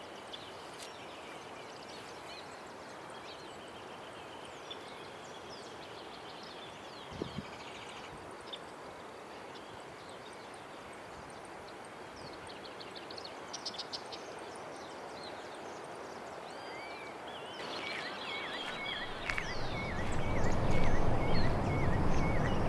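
Wild birds calling and singing, with short high arching notes, a quick trill about halfway through and a run of evenly repeated chirps near the end, over a steady outdoor hiss. In the last few seconds a louder, deeper rushing noise builds up.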